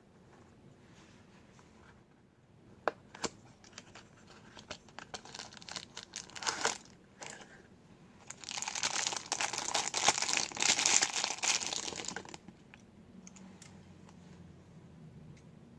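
Toy packaging being handled and opened: a few sharp clicks, then scattered crinkles, then about four seconds of dense crinkling and tearing starting about eight seconds in.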